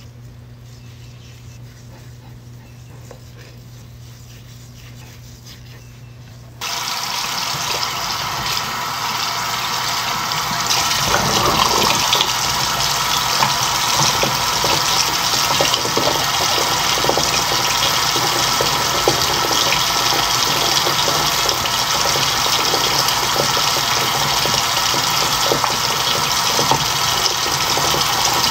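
Bathroom sink tap running into the basin, starting suddenly about seven seconds in, with water splashing as cleanser is rinsed off the face.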